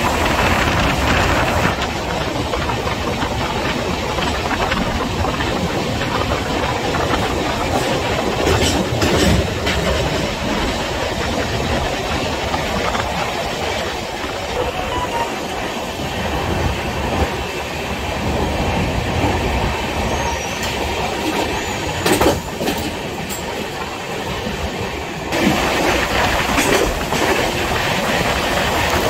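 Train running through a rock tunnel: a steady rush and rumble of wheels on the rails, with sharper clacks about nine seconds in and again around twenty-two seconds, growing louder near the end.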